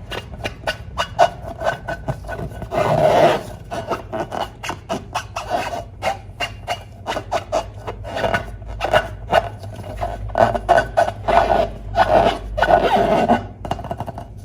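Slime or a slime-filled balloon being squeezed and kneaded: a fast run of wet clicks and squelches with a few longer squishes, the loudest about three seconds in and again near the end.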